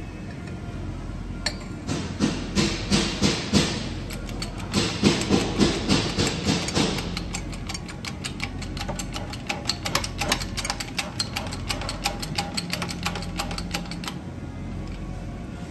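Shop press working to press a bearing onto a transmission gear: two runs of sharp, rhythmic metallic clanks about three a second, then lighter, quicker ticking, over a steady low hum.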